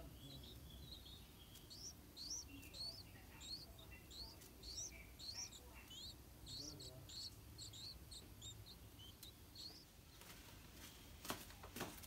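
Yellow-vented bulbul nestlings giving faint begging chirps, a quick run of short high notes about three a second, while being fed at the nest; they stop a couple of seconds before the end. Two sharp clicks follow near the end.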